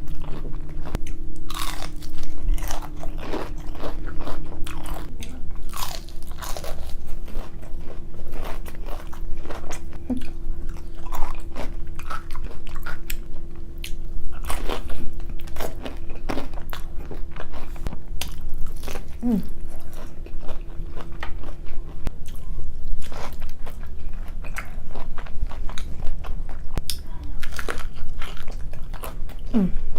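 Close-miked eating: repeated crunching bites and chewing of crisp food, with a faint steady hum underneath that stops about three-quarters of the way through.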